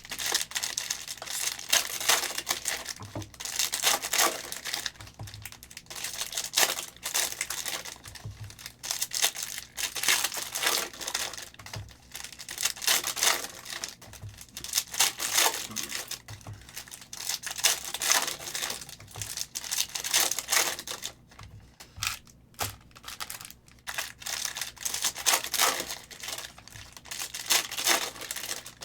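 Plastic wrapping and foil trading-card pack wrappers crinkling and tearing as packs are opened and handled, in a continuous run of crackles with a short lull about two-thirds of the way through.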